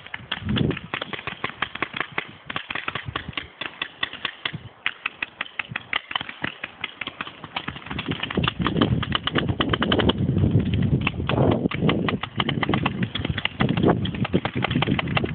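Paintball markers firing in rapid volleys: many sharp pops a second, from several guns at once. A low rumble on the microphone comes in from about halfway through.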